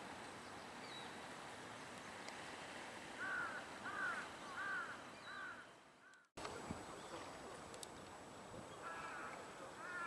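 A crow cawing in a run of about five evenly spaced caws, with a further series of caws near the end, over steady outdoor background hiss.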